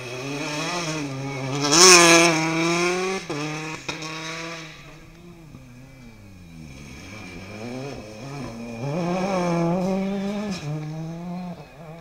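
Rally car engine at high revs on a gravel stage: the note climbs to a loud peak about two seconds in, two sharp pops come as the revs drop, and the engine quietens before revving hard again near the end.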